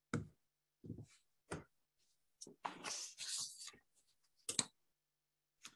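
Faint, scattered short clicks and rustles, with a longer hiss a little before the middle, over a video-call microphone that drops to silence between sounds.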